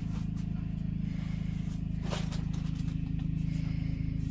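A steady low hum, with a short rustling noise about two seconds in.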